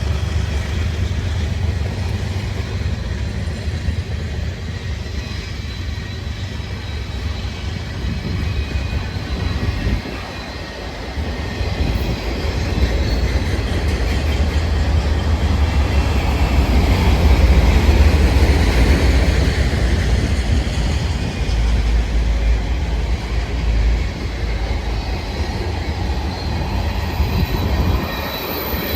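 Freight train rolling past, with a steady low rumble and the clatter of wheels on rail. A thin, high wheel squeal comes in near the end.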